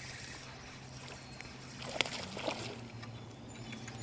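River water sloshing as a hooked smallmouth bass is played, with a sharp click about two seconds in and a smaller knock just after, over a steady low hum.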